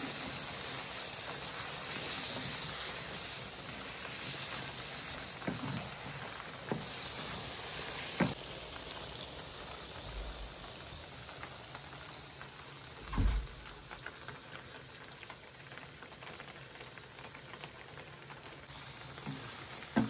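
Chicken pieces in a thick spiced gravy sizzling in a black wok, with a wooden spatula stirring and a few short knocks against the pan. The hiss grows quieter in the second half.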